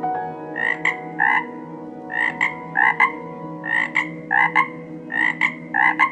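Toad croaking: about eight short calls in a row, a little more than one a second, each ending in a sharp click.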